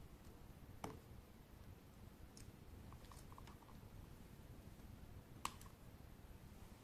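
Near silence broken by faint clicks of plastic LEGO Technic parts being handled as a ground power unit's hose is fitted to the model, with two sharper clicks, one about a second in and one about five seconds in.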